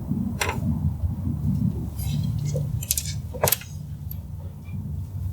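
A few short, sharp clicks and clinks over a steady low rumble, the loudest about three and a half seconds in.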